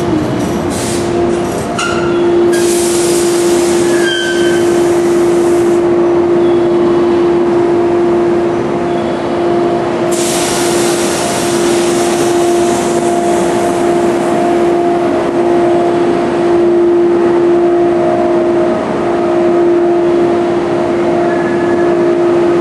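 Electric multiple-unit train standing at a platform, its on-board equipment giving a steady hum with a clear tone. Two spells of loud air hissing come through, one from about two to six seconds in and one from about ten to thirteen seconds in.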